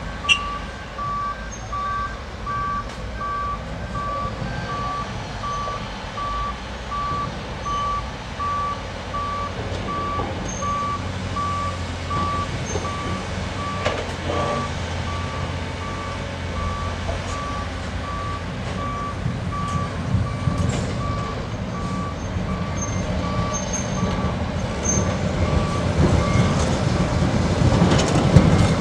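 Reversing alarm on a construction machine, beeping regularly at one steady pitch and stopping near the end, with a second, higher-pitched reversing alarm in the first few seconds. Heavy diesel engine running underneath, growing louder toward the end.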